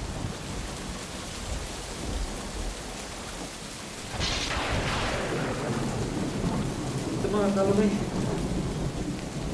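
Heavy rain falling steadily during a thunderstorm, with a crack of thunder about four seconds in that rumbles away over about a second.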